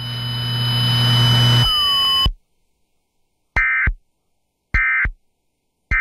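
A steady low hum with a high whine and hiss, which cuts off about two seconds in; after a second of silence come three short, identical raspy data bursts about a second apart. The bursts are the Emergency Alert System's end-of-message (EOM) code, closing the alert on FM radio.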